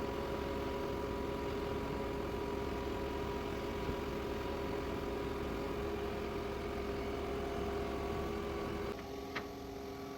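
Concrete pump truck's engine running steadily with a constant hum, driving the hydraulics while the pump is set up and the outriggers are put out. About nine seconds in the sound steps down quieter, with a single short click just after.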